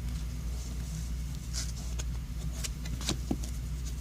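Trading cards being handled and flipped, giving a few short, faint papery swishes over a steady low hum.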